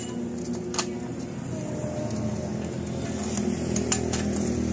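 A few sharp metal clinks as a curved sheet-metal strip is handled against a round perforated steel plate, one about a second in and the loudest near the end, over a continuous low drone.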